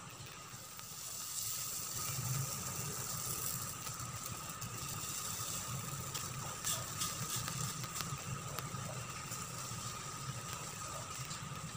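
A steady low rumble and hiss with a faint thin whine, and a few light clicks and scrapes about six to nine seconds in as a plastic spatula spreads pancake batter in a stainless steel frying pan.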